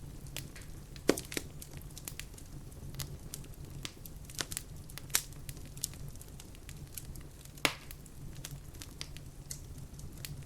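Wood fire in a fireplace crackling: irregular sharp pops and snaps over a steady low burning rumble, with two louder pops about a second in and near eight seconds.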